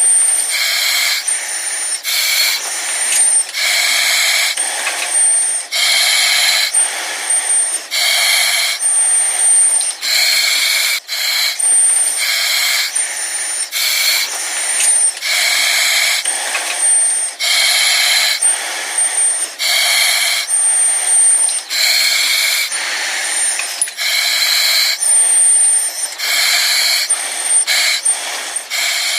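Breathing through an oxygen mask: regular hissing breaths in and out, about a second each, with a thin high whistle in the short gaps between them.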